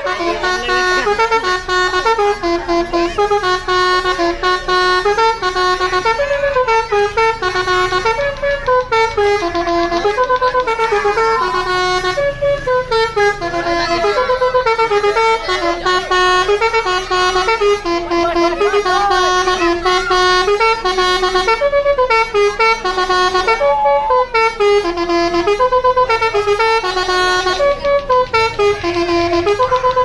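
Bus telolet horn, a Basuri multi-tone air horn, playing a fast melody of stepped notes that jump up and down and repeat without a break.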